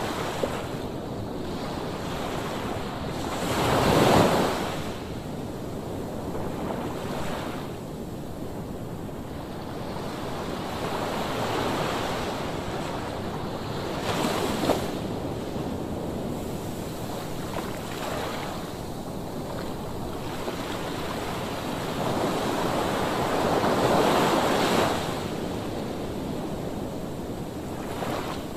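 Sea waves breaking and washing up on the shore, the surf swelling and falling back every several seconds, with the biggest surges about four seconds in and near the end. Wind blows over the microphone throughout.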